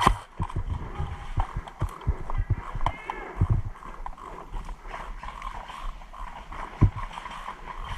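Irregular footsteps and knocks of gear being carried, with faint distant voices.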